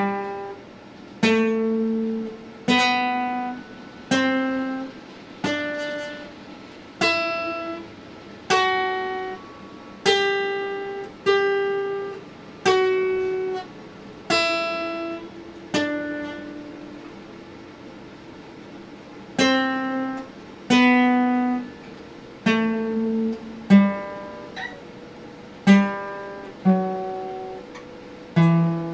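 Acoustic guitar played slowly, one plucked note about every second and a half, each left to ring and fade, with a pause of about three seconds halfway through before the melody resumes.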